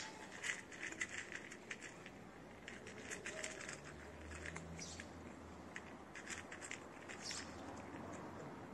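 Two cats chewing dry kibble, a steady run of irregular crisp crunches and clicks.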